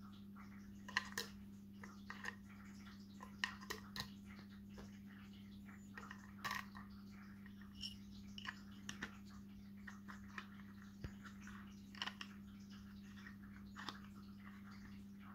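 Scattered small plastic clicks and taps from handling a pen-style pH meter, its battery end open and then its screw cap turned back on, over a steady low hum.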